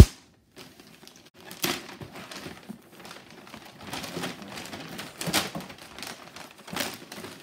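Wrapping paper being crinkled and torn as a present is unwrapped, in irregular rustling bursts. A single sharp click right at the start is the loudest sound.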